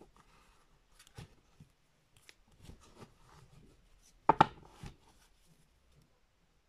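Lenormand oracle cards being handled and drawn from the deck: soft rustling and small clicks, with a short burst of sharp card snaps about four seconds in.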